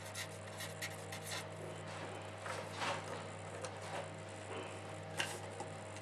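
Marker pen writing on paper: faint, irregular scratchy strokes over a steady low hum.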